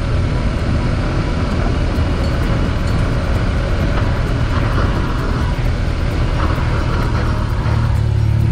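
Motorcycle engine running steadily at cruising speed, under the noise of wind and tyres on a gravel road.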